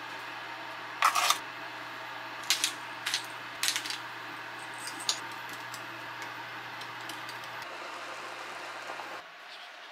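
A spoon clinking against a glass sauce boat as heaped sugar is tipped into the sauce, with several sharp clinks in the first four seconds. Fainter ticking from a pepper grinder follows.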